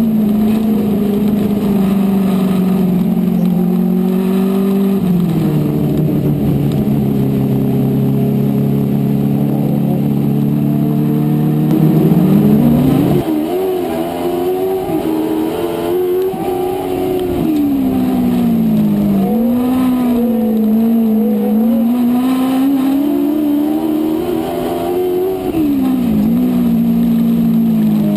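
On-board sound of a dwarf race car's engine at race pace on a dirt oval. It holds a steady pitch for the first dozen seconds, dropping to a lower steady note about five seconds in, then rises and falls over and over as the car speeds up and slows through the laps.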